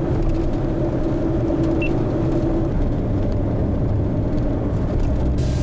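Car driving along a highway: steady low engine and road rumble, with a hum that fades out about halfway through.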